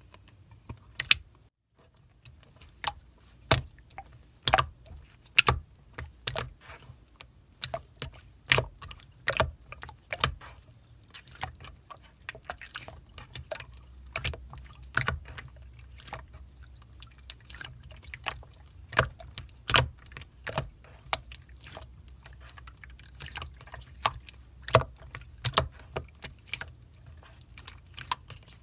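Clear slime being squeezed, pressed and poked by hand, giving sharp wet clicks and pops at an irregular pace of one or two a second.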